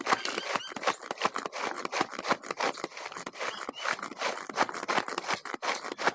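Plastic push-down manual food chopper worked in quick repeated presses, about three a second: each stroke is a clatter of the plunger and its spinning blades chopping chillies, shallots and garlic in a little water into spice paste.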